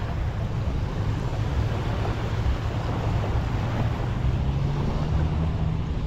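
Wind buffeting the action camera's microphone over the wash of surf on the beach. In the second half a low motor hum rises in pitch.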